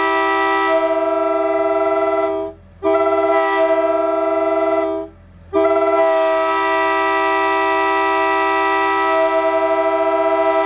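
Nathan K125 three-chime air horn (narrow-font bells #1 and #2 with a wide-font #5) blowing a loud, steady chord. It cuts off briefly twice, about two and a half and five seconds in, and is held again each time.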